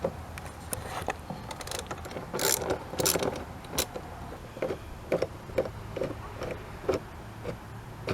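Socket ratchet clicking as it backs out a 10mm bolt: a few louder clicks, then a run of short clicks about twice a second.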